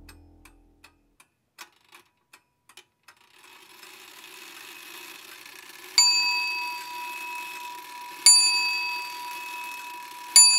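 A run of sharp ticks for about three seconds, then three bell dings a couple of seconds apart, each struck sharply and ringing out as it fades, over a faint hiss.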